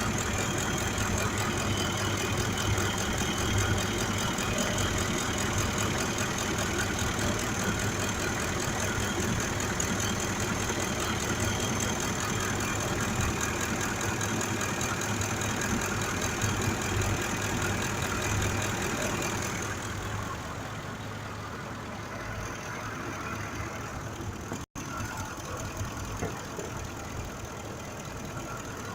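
Ford 5.4-litre V8 idling steadily with a misfire on cylinder 2, which the mechanic traces to a mechanically faulty fuel injector. It grows quieter about two-thirds of the way through.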